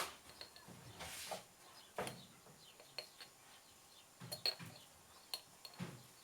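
Faint, scattered light taps and clinks of kitchen utensils and containers, as ground ginger is added for the harira spice mix.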